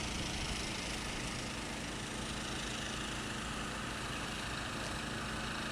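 Steady engine-like running noise with a faint low hum and no distinct knocks or changes.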